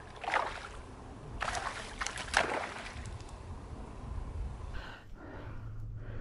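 A hooked largemouth bass splashing at the water's surface while it is played in, several short splashes in the first three seconds. A steady low wind rumble runs underneath.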